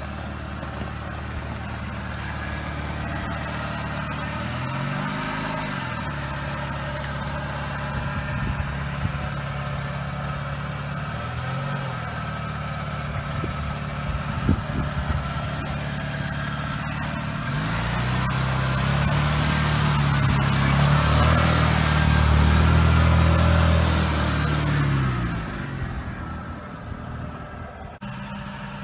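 Suzuki Sidekick's four-cylinder engine running as it is driven over gravel, with brief revs about five and twelve seconds in. About eighteen seconds in it revs up louder and longer, with a rushing hiss, and it eases off by about twenty-five seconds.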